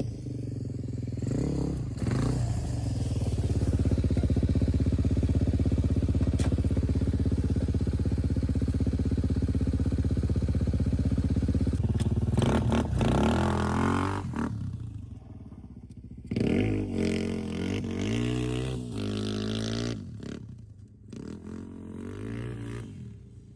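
Off-road motorcycle engine under way in sand. It holds steady revs for several seconds, then revs up and down with pitch changes through the middle, and drops to a quieter, lower run near the end.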